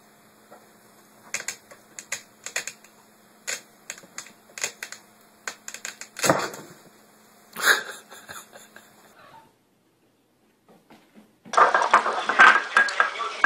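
Irregular sharp clicks and taps as a cat climbs into a fabric storage hamper. After a short silence comes a loud clatter of a glass bowl on a tiled floor as a kitten jumps at it and tips out the milk.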